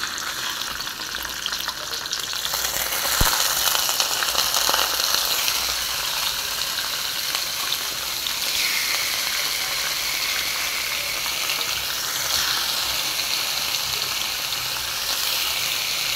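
Pieces of tulingan (frigate tuna) sizzling as they fry in hot oil in a wok. The sizzle grows louder about three seconds in, with one light knock, as more fish is laid into the pan, then holds steady.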